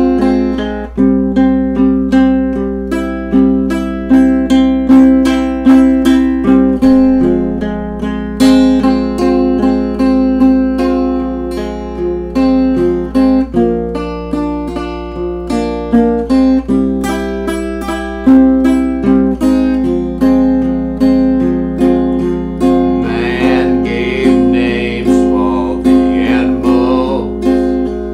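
Acoustic guitar played in a steady rhythm of plucked, strummed chords, with a singing voice joining near the end.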